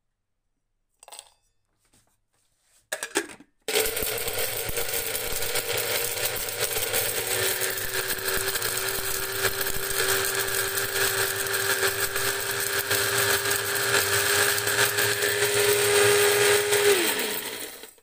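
Electric blade coffee grinder grinding dried rose hips. After a few light clicks, the motor starts about four seconds in and runs steadily with a crackling rattle for about thirteen seconds, then its pitch falls as it spins down near the end.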